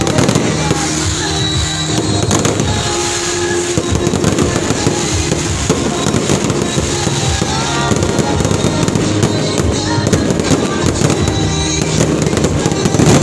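Aerial fireworks going off without pause, a dense run of crackling and popping, over loud music with long held notes.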